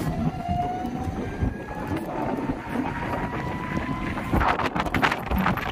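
Wind buffeting the microphone over road traffic noise, with a motor vehicle's engine tone rising slowly. A run of sharp clicks and rattles starts about four seconds in.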